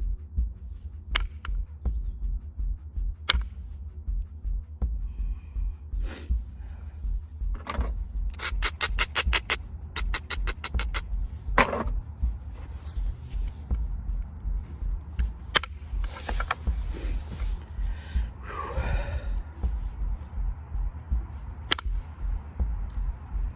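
Stone knapping: a copper flaker working a limestone point, with sharp clicks as flakes snap off now and then and a quick run of about a dozen clicks in the middle.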